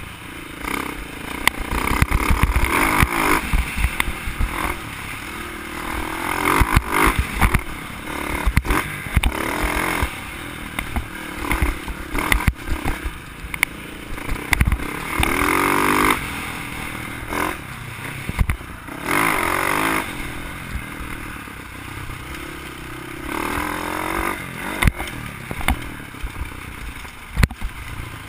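Dirt bike engine revving up and down again and again while riding a rough dirt trail, heard close from a helmet camera. Sharp clattering knocks from the bike over bumps are mixed in.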